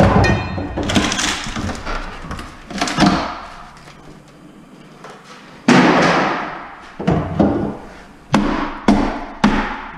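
Repeated blows of a demolition tool on old solid-wood kitchen cabinets, wood cracking and boards knocking loose. After a short lull the loudest crash comes a little past halfway, followed by a quick run of strikes.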